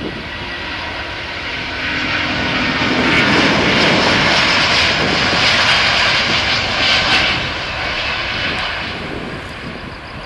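The Rolls-Royce Trent XWB engines of an Airbus A350-1000 at takeoff thrust as the airliner accelerates down the runway past the listener. The jet noise swells to a peak about halfway through, then fades as the aircraft moves away.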